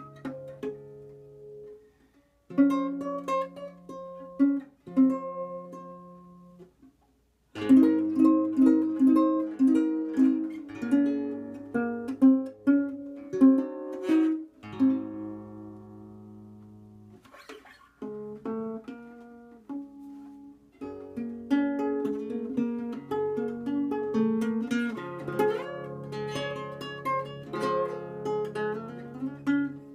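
Nylon-string classical guitar played fingerstyle, solo: plucked melody notes over sustained bass notes. The playing breaks off briefly twice in the first several seconds, then runs on more densely.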